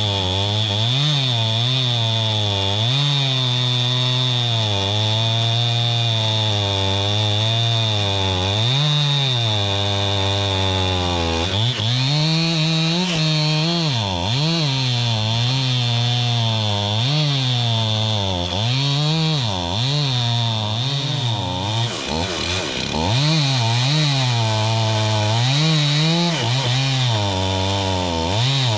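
STIHL 500i two-stroke chainsaw at high revs cutting through big logs, its engine note repeatedly dropping under load and picking back up. The chain is dull enough that the owner says it needs sharpening.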